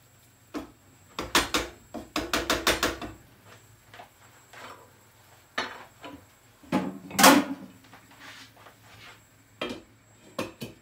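A spoon scraping, tapping and clattering against a pot as thick toasted semolina halva is spread flat, with quick runs of knocks early on and the loudest knock about seven seconds in. Near the end a few sharp clicks come as the pot lid is set on.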